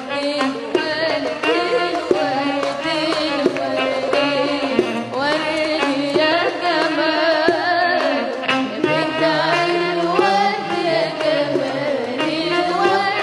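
A young girl singing an Arabic song into a microphone in a wavering, ornamented melodic line, over an instrumental backing with hand-drum strokes.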